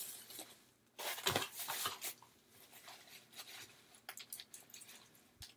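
Quiet rustling and crinkling of packaging as a bath bomb is unwrapped and handled, with a burst of crinkles about a second in, then scattered light taps and clicks.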